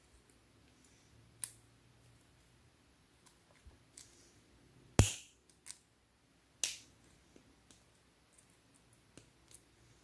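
Scattered sharp metallic clicks of fine-tip pliers working aluminium can pull tabs, about a dozen in all, the loudest about five seconds in.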